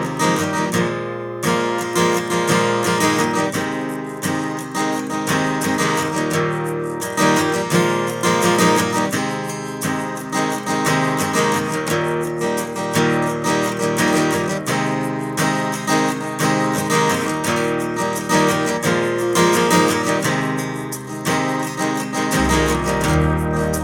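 Background music led by a strummed acoustic guitar with a steady rhythm; a deeper bass part comes in near the end.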